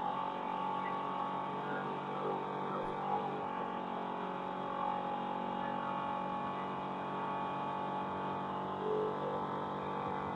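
Race vehicle's engine heard onboard, running at a steady, high speed that barely changes.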